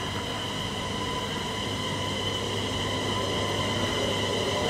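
Øresundståg electric multiple unit (DSB ET / X31K) starting to pull out of an underground platform. Its electric hum and whine hold steady in pitch and grow gradually louder as it moves off.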